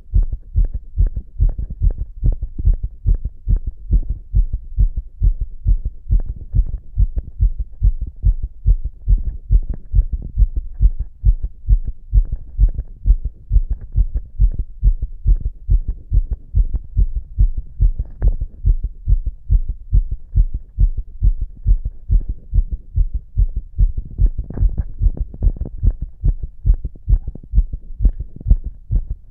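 A man's own heartbeat heard through a stethoscope pressed to his chest: a steady, unbroken run of low, muffled thumps.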